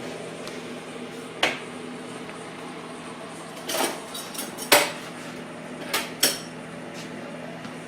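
Metal parts and needle-nose pliers clinking and tapping as they are handled: about five short sharp knocks, the loudest a little past halfway.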